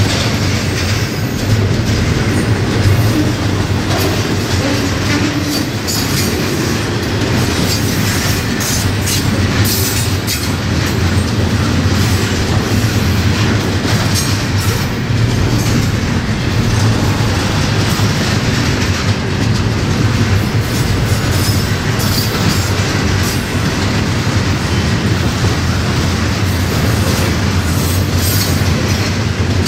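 Double-stack intermodal container train of loaded well cars rolling steadily past: a continuous rumble of steel wheels on rail, with irregular clicking and clacking as the wheels pass over the rail joints.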